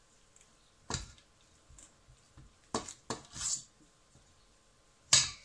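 A spatula knocking and scraping against a stainless steel mixing bowl of fish paste: about four brief clatters, the loudest near the end.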